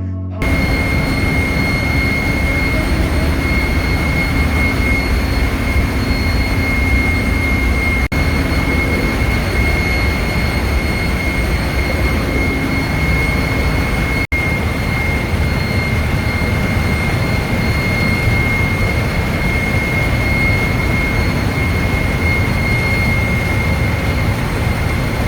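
Ship's engine-room machinery running steadily: a loud, even din with a deep rumble and a steady high-pitched whine over it.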